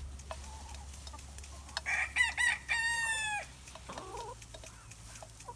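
Rooster crowing: three short notes about two seconds in, then one long held note that drops at the end. A brief, lower cluck follows.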